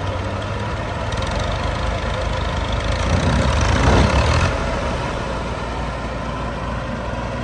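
Combine harvester's diesel engine running steadily. It swells louder for about a second and a half around the middle, then settles back.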